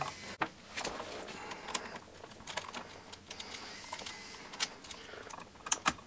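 Scattered light clicks and rustling of hands working electrical wires and plastic Wago 221 lever connectors at an outlet box.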